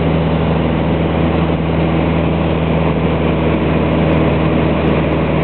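Single-engine light aircraft's piston engine and propeller droning steadily, heard from inside the cockpit.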